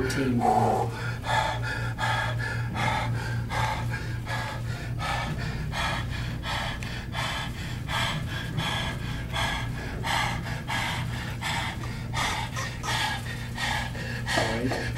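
A man breathing hard and fast, about two forceful breaths a second, from the strain of a slow, heavy compound row, over a steady low hum. A short vocal sound that falls in pitch comes at the start and again near the end.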